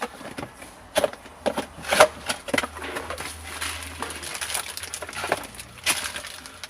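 Plastic car-stereo parts and trim being handled: irregular rustling with scattered clicks and knocks.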